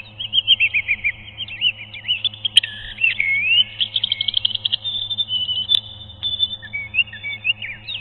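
Small songbird singing and chirping in quick sweeping whistled notes, with a fast trill about four seconds in and a held high note just after. Two sharp clicks sound within it, and a low steady hum runs underneath.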